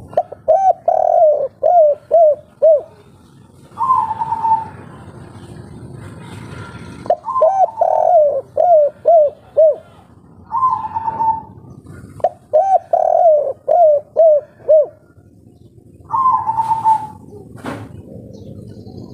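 A spotted dove, a 'kuk 3' singer, cooing in three phrases of about six quick coos each. Each phrase is followed a second or so later by a single higher, drawn-out coo. There is one sharp click near the end.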